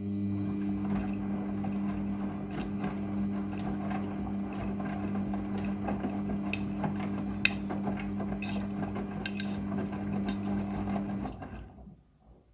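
Midea front-loading washing machine running during its rinse cycle: a steady electric hum over a wash of water noise, with scattered sharp clicks. It stops about eleven and a half seconds in.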